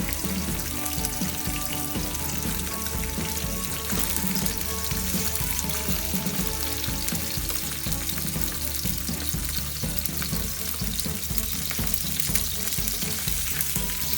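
Sea bass fillet frying skin-side down in hot olive oil in a frying pan: a steady, dense sizzle as the skin sears and browns.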